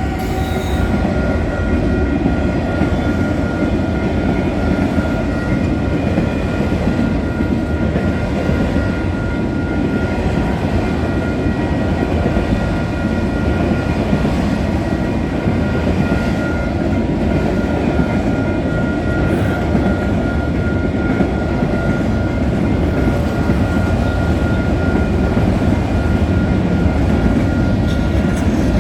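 Freight train of autorack cars rolling past close by: a steady, loud rumble of steel wheels on the rails, with a thin steady high whine over it.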